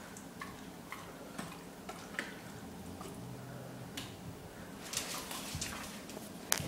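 Irregular light clicks and taps of a dog's claws and a plastic lattice ball on a hard kitchen floor as the dog noses and paws the ball about, with a sharper knock near the end.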